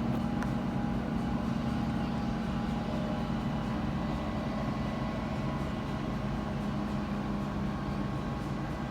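Outdoor tornado warning siren sounding a steady tone at an unchanging pitch, as in its routine monthly test.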